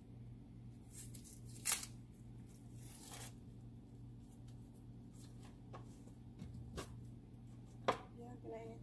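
Dry, papery onion skin crackling and tearing as a whole onion is peeled by hand, with sharp clicks about two seconds in and again near the end, over a steady low hum.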